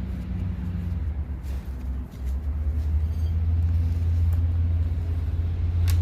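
A steady low engine-like rumble that grows louder about two seconds in, with a few faint clicks over it.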